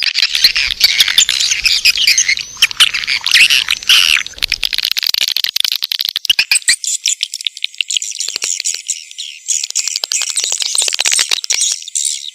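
Swiftlet calls, the 'birahi' courtship calling sound used to lure swiftlets into a nesting house: a dense chatter of many rapid clicking trills and twittering chirps. About seven seconds in the lower part of the sound drops out, leaving only the higher chirps.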